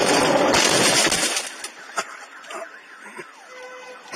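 Car crash: a loud crunching, glass-breaking noise that cuts off about a second in, then a single sharp knock. Near the end a car alarm starts up faintly.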